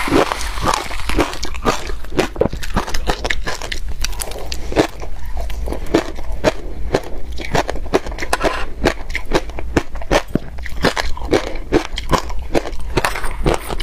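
Crushed ice being bitten and chewed: a dense, continuous run of sharp crackling crunches.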